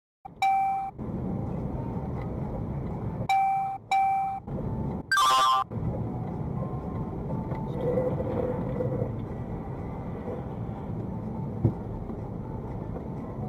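A car horn gives three short beeps, then a louder, harsher blast about five seconds in. Steady road and engine noise from inside a moving car follows, with one sharp click near the end.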